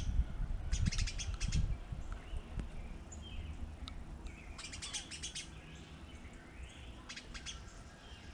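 Small birds chirping in three quick bursts of rapid high notes, with a few short sliding calls between them. A low rumble fades out over the first two seconds.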